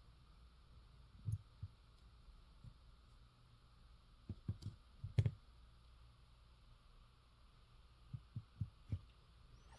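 Faint handling noise from a die-cast model airplane being turned by hand: scattered soft knocks and taps in three small clusters, a couple near the start, about five in the middle, four near the end, over a low room hum.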